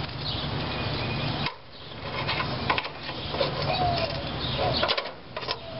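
Steel tongs clicking and scraping against an enamelled roasting pan of ribs, over a steady background hiss and hum. The background drops out for a moment about a second and a half in.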